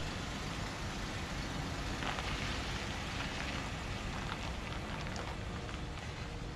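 Jeep Wrangler moving slowly across an asphalt lot, a steady low engine and tyre noise.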